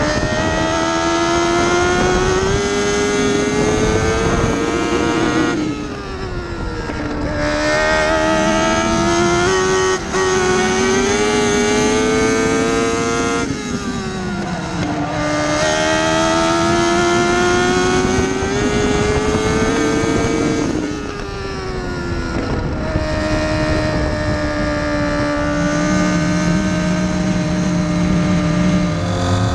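Midget race car's engine heard from the cockpit, climbing in pitch down each straight and dropping as the driver lifts for the turns, about every seven to eight seconds. Near the end it holds a steady, lower note.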